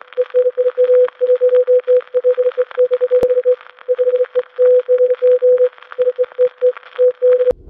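Morse code beeps: one steady tone keyed on and off in short and long pulses, over crackly radio static. Both stop just before the end.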